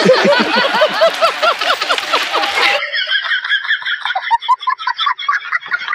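Laughter in quick repeated bursts over a loud hiss-like background noise. It cuts off abruptly about three seconds in to a thinner, higher-pitched laugh in rapid short bursts.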